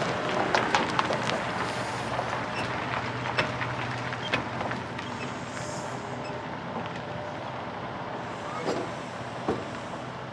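Semi truck's diesel engine running steadily, with a quick run of clanks and rattles through the first few seconds and two sharp knocks near the end.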